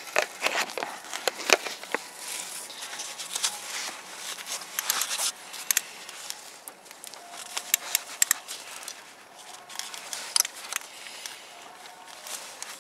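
Hand ratchet and socket being worked on a spark plug in a Ford V10 engine: irregular sharp clicks and metal knocks, some in short quick runs, with brief scraping.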